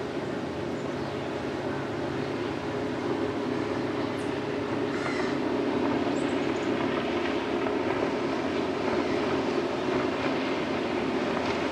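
Boat motor droning steadily, slowly growing louder as it passes, with a few faint bird chirps.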